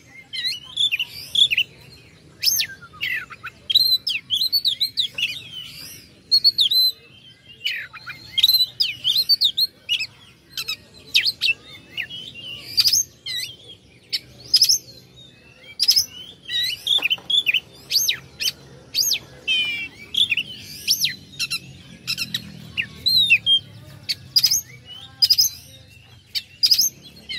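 Oriental magpie-robin (kacer) singing a fast, varied, unbroken run of whistles, sweeping notes and sharp chirps. It is the aggressive kind of song that keepers play to provoke another magpie-robin into answering.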